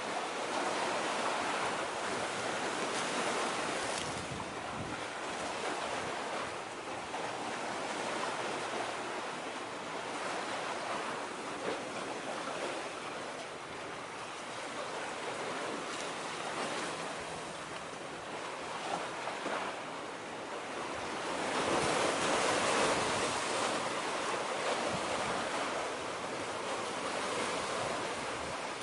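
Small waves washing steadily against the shore, with a little wind; the wash swells louder about three quarters of the way through.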